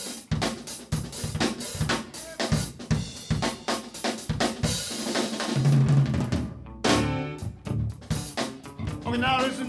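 Drum solo on a full drum kit: dense strokes on snare and bass drum with hi-hat and cymbal crashes.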